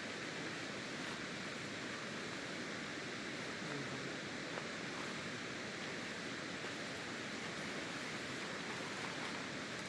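Steady, even rush of falling water from a big waterfall.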